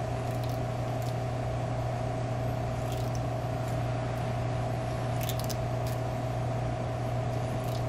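Steady low hum of room machinery, with a few faint crackles from vinyl electrical tape being unrolled and wrapped around a coaxial cable connector.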